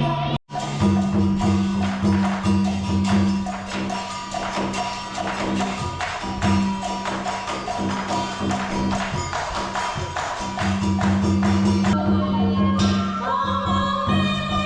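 Music with a regular percussive beat over sustained low and mid tones, cutting out briefly about half a second in and changing texture near the end.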